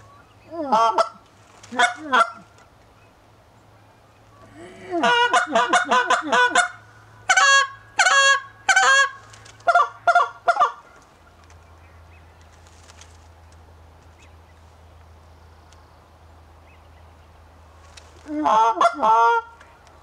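Canada goose call blown by a hunter: loud goose honks and clucks in bursts, a couple of short ones at first, then a long fast run of calls lasting several seconds, a pause, and one more short burst near the end.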